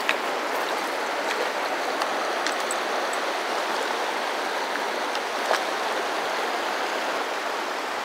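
Fast river current rushing over rocks: a steady, even rush of water, with a couple of small clicks, one right at the start and one about five and a half seconds in.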